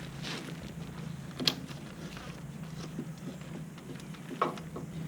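Hydraulic quick-connect couplers being worked by hand: scattered metallic clicks and clunks, the sharpest about a second and a half in and again near the end. The coupler is stubborn and not snapping home. A steady low hum runs underneath.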